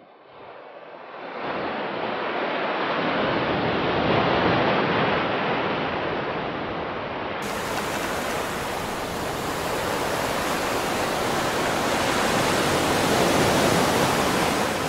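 Steady rushing noise that fades in from silence over the first two seconds, then holds. It turns suddenly brighter and hissier about halfway through.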